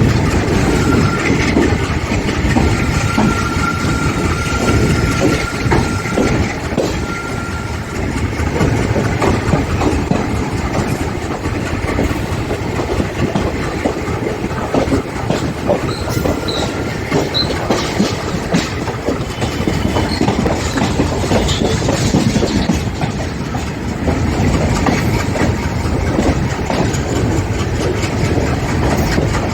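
Indian Railways train running on the rails: a steady rumble of the coaches, with the wheels clicking over the rail joints.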